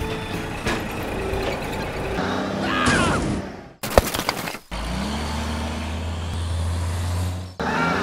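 Truck sound effects: a short burst of hiss like an air brake about four seconds in, then a low, steady engine hum that stops suddenly near the end.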